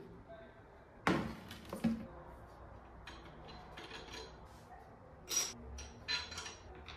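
Handling noises from taking a desk lamp apart: the lamp shade knocks as it is set down about a second in, followed by small clicks and clinks as a fitting is unscrewed from the top of the lamp and a small metal washer is laid on the table near the end.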